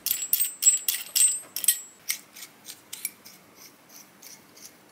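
Small metal clicks and clinks as a steel nut is picked up and spun by hand onto an M6 threaded bolt, against a washer and a steel collet. The clicks come thick and sharp at first, then thin to faint ticks about three a second.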